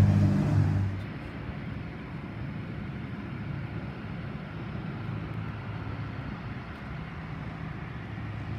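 A fuel tanker truck's engine running loud and close, cut off sharply about a second in. After that comes a steady, much quieter rumble of a single-engine propeller plane coming in low to land, with outdoor background noise.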